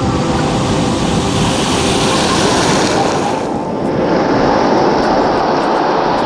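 Sea surf breaking and washing up a pebble beach, a steady low rumble with the foam hissing over the stones; the hiss drops briefly about three and a half seconds in as the next wave surges in.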